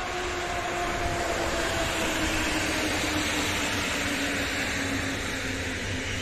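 PKP Intercity passenger coaches behind a Newag Griffin electric locomotive rolling past as the train slows into the station platform: a steady rush of wheels on rails, with a faint whine that slides slowly down in pitch.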